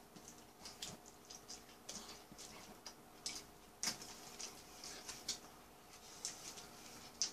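Faint, irregular crinkles and clicks of a hamburger being handled on its paper wrapper and eaten, with a sharper click about four seconds in and another near the end.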